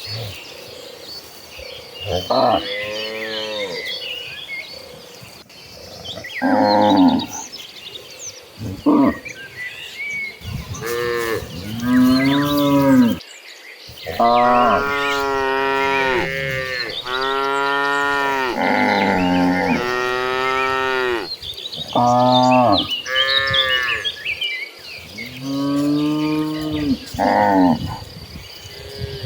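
A herd of cattle mooing again and again, each moo a drawn-out call that rises and falls in pitch, with several cows calling over one another in the middle stretch.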